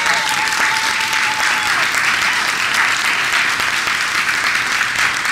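Audience applause, a steady dense clapping, welcoming a guest speaker to the stage. A high held note sounds over the clapping for about the first two seconds.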